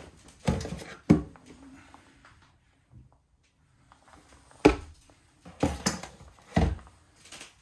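A plastic washing-up bowl being handled in a stainless steel sink: a series of separate sharp knocks and bumps, two in the first second and several more in the second half.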